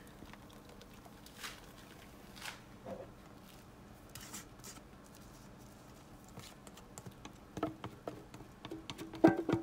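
Soft scattered scrapes and taps of a spatula against a metal mixing bowl as thick, frothy egg-pie filling is poured and scraped out into the pie crust. The scraping comes thicker near the end.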